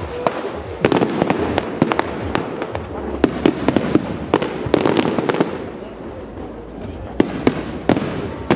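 Distant aerial fireworks bursting: a rapid, irregular string of sharp bangs and crackles, easing into a quieter spell a little past the middle and picking up again near the end.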